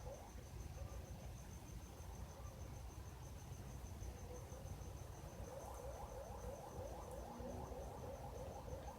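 Unidentified night noise: a faint, rapid series of short rising chirps, several a second, that fades in the middle and grows louder again from about halfway on. Under it runs a steady high-pitched pulsing, as from a cricket.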